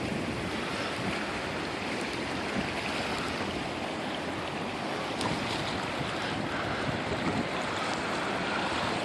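The Black River in spring flood, its high water rushing with a steady, even roar.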